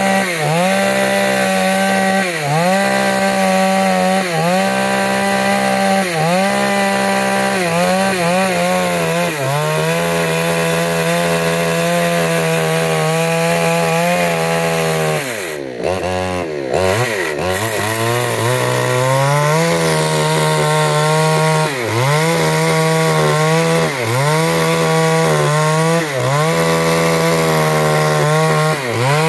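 Chainsaw running at high revs, ripping wood lengthwise. Its pitch dips briefly about every two seconds as the chain bogs in the cut. About halfway through the revs fall away for a couple of seconds, then climb back up.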